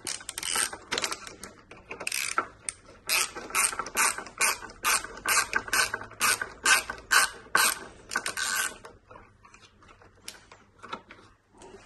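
Socket ratchet wrench with an extension clicking as it is worked back and forth to undo the bolt of an electric scooter's rear suspension link. A steady run of sharp ratchet clicks, about three a second, stops about nine seconds in, leaving a few faint ticks.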